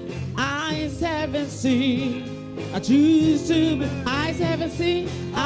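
A woman singing a gospel worship song into a microphone, her voice sliding through melodic runs over sustained instrumental chords.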